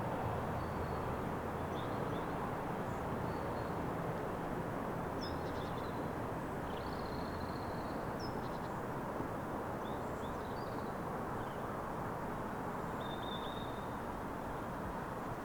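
Small birds chirping in short scattered calls over a steady distant rumble, with a faint low engine hum that fades in the first few seconds.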